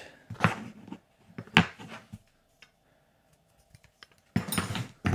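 Metal jaw harps (Estonian parmupil) clinking and rattling against each other as they are picked through by hand, in a few short bursts, the busiest near the end.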